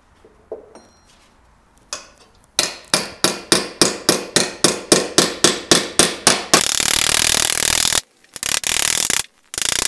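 A small hammer striking the thin steel ocular plate of a helmet laid on foam: a steady run of blows, about four a second, starting a little over two seconds in and lasting about four seconds. It then gives way to a dense, continuous noise in three bursts.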